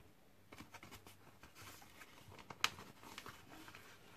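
Metal spoon scooping rice flour into a stainless steel mixing bowl: faint scraping and light taps, with one sharper tap about two and a half seconds in.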